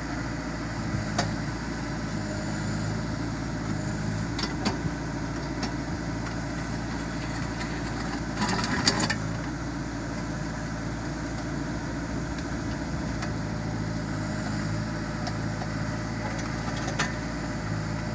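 Backhoe loader's diesel engine idling steadily, with a few light clicks and a brief clatter about nine seconds in.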